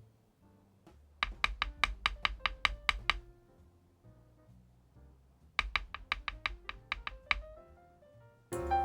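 Typing on a LUMINKEY LUMINO75 gasket-mounted aluminium mechanical keyboard: two quick runs of keystrokes, about six or seven a second, over soft background music. The music gets louder near the end.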